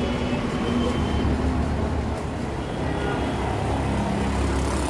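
Road traffic: a steady low rumble of passing vehicle engines, swelling slightly about a second in and again near the end.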